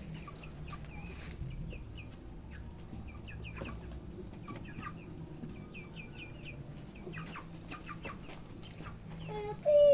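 Chickens clucking, with many short calls repeating throughout over a steady low hum. A louder, drawn-out call comes just before the end.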